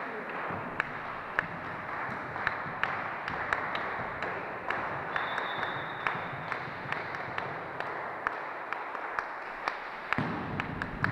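Volleyballs being struck and bouncing on a sports-hall floor: a string of sharp, irregular smacks, roughly two a second, over the hall's steady background noise.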